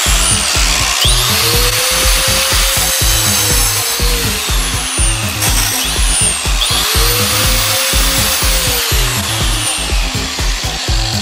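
Angle grinder grinding into an iPhone 6, its whine rising quickly and then sinking slowly as it bites into the phone, twice. Background music with a steady beat plays underneath.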